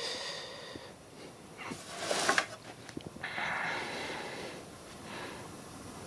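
A person breathing audibly close to the microphone: several drawn-out, noisy breaths, the loudest about two seconds in.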